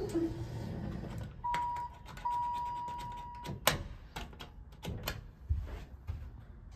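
Hydraulic elevator car coming to a stop, its low running sound dying away about a second in, followed by a steady electronic beep sounding twice, a short one then a longer one. A sharp click follows, then the car doors slide open with light clicks and a thud.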